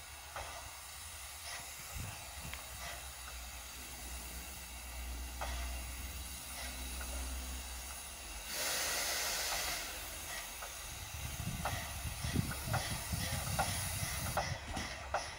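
Steam locomotive venting steam with a steady hiss, and a louder blast of steam about eight seconds in that lasts a second or so. From about eleven seconds the exhaust beats begin, a regular chuffing of about three strokes a second as the locomotive starts to pull away.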